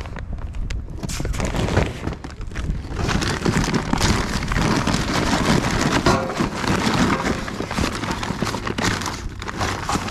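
Paper bag of instant-light charcoal crinkling and rustling as it is handled and torn open in a steel grill, with a busy run of crackles and clicks.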